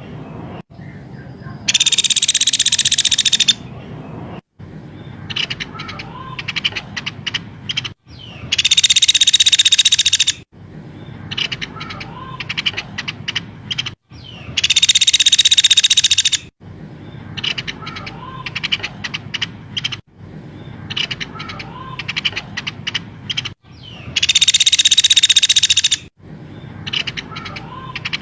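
Looped songbird tutor recording: loud, harsh, buzzy high-pitched trills of about two seconds each, recurring every several seconds, with rapid clicking chirps and short whistled notes between them.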